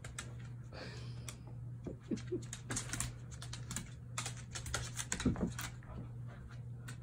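Claws and paws of a dog and kitten clicking and scuffling on a hardwood floor as they play-wrestle: a rapid, irregular patter of ticks.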